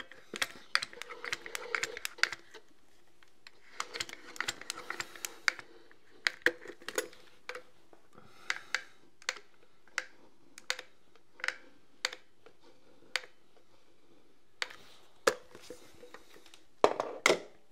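Manual caulking gun being pumped to lay a bead of grab adhesive, a sharp click with each squeeze of the trigger, about one a second, with some scraping and handling between. A louder burst of knocks comes near the end.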